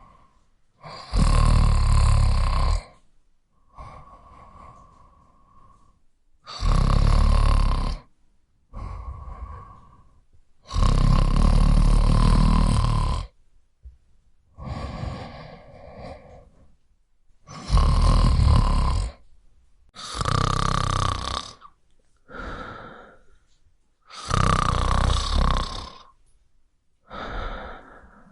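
A person snoring in a steady rhythm: about seven loud, rumbling snores, each one to two and a half seconds long, with softer breaths between them.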